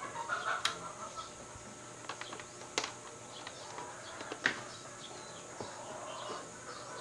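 A few light clicks and knocks from a DVD player's power-supply circuit board and test leads being handled on a workbench, with a bird clucking briefly in the background near the start.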